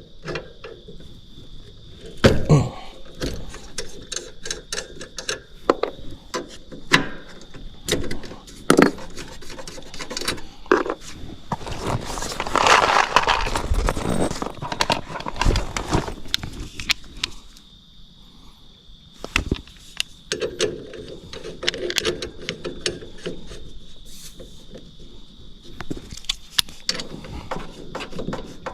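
Clicks, knocks and metal scraping as refrigerant pressure probes are fitted onto the heat pump's service ports, with a short hiss of refrigerant about 12 seconds in as a port valve is opened: the system holds a charge.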